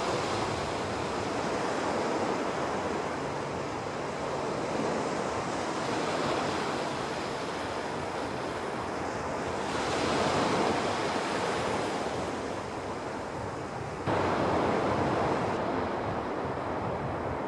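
Small waves breaking and washing up a sandy beach in a steady rushing surf. The surf swells louder around ten seconds in and jumps suddenly louder about fourteen seconds in.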